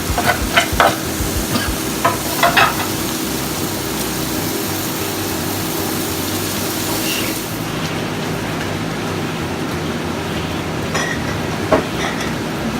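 Stir-fry vegetables (zucchini, snow peas, chili, ginger and garlic with a little brown sugar) sizzling in a hot pan as they are stirred, with sharp utensil clicks and scrapes in the first few seconds and again near the end. The sizzle eases slightly after about seven seconds.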